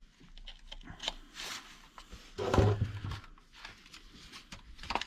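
Light clicks and rustling of small parts and tools being handled on a workbench, with a brief low voice-like sound, like a grunt or hum, about two and a half seconds in.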